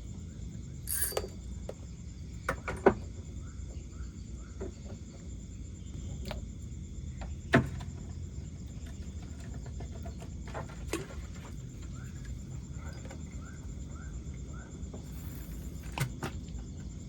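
Night riverside ambience: a steady high insect drone, with two runs of short repeated animal calls, about three a second. A few sharp clicks or knocks are scattered through it, the loudest about three seconds in and again near eight seconds.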